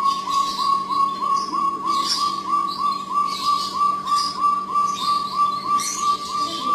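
Jungle bush quail (Perdicula asiatica) calling a long, even series of short notes at one steady pitch, about three a second. Other birds chirp higher over it, and there is a faint steady hum.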